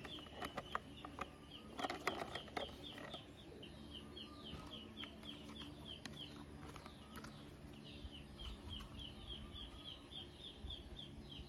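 A bird chirping over and over, short high chirps about four a second, with a brief pause a little past the middle. Over the first few seconds, sharp clicks and knocks of hard plastic toy parts being handled.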